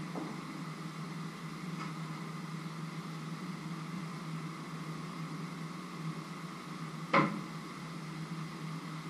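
Steady low hum and hiss of a kitchen with pots on the stove, with one sharp knock of kitchenware about seven seconds in and a faint click near the start.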